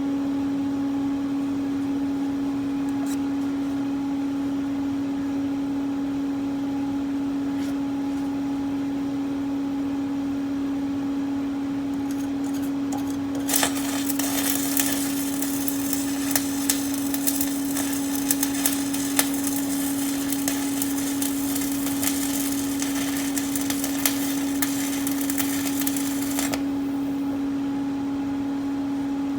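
Electric welding arc on steel angle brackets, crackling and sputtering for about thirteen seconds from roughly halfway in, then cutting off. A steady hum runs underneath throughout.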